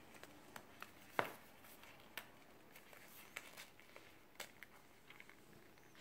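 Faint scattered clicks and light rustling as fingers work a sandal's metal pin buckle and strap, undoing the buckle; the sharpest click comes about a second in.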